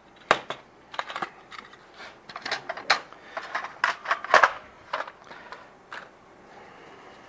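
Hard plastic parts of a video printer's paper drawer being handled and fitted together: a series of sharp clicks and knocks, thinning out after about six seconds.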